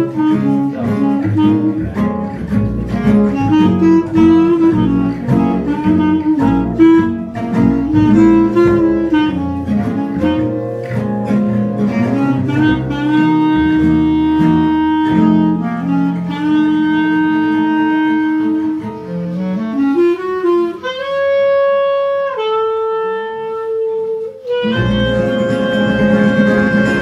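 Gypsy-jazz quartet of clarinet, two acoustic guitars and double bass playing a swing tune: a clarinet melody over strummed guitar rhythm and bass. After about half the time the strumming thins and the clarinet holds long notes that step upward, and near the end the whole band comes in together on a long held chord.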